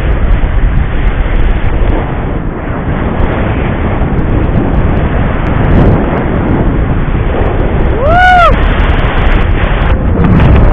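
Wind buffeting the microphone in paragliding flight, a loud, steady rushing noise. About eight seconds in, a brief high tone rises and falls over about half a second.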